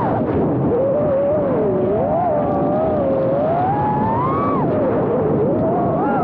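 Onboard sound of an iFlight Nazgul Evoque F5 FPV quadcopter in flight: its brushless motors and propellers whine over a steady rush of prop wash, the pitch rising and falling with throttle, dipping about two seconds in and climbing to a peak near four and a half seconds.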